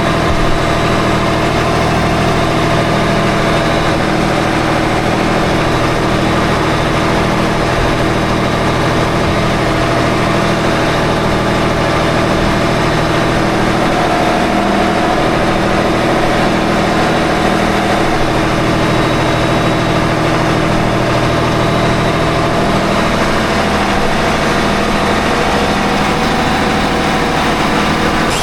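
The motor yacht's twin diesel engines running steadily under way, a loud constant hum with a slow, regular pulsing beat in it.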